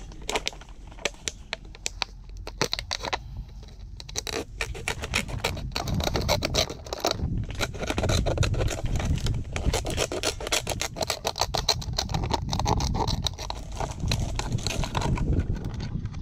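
Scissors cutting a thin plastic water bottle: a run of snips with the plastic crackling and crinkling. Sparse at first, the cutting gets busier and louder from about four seconds in.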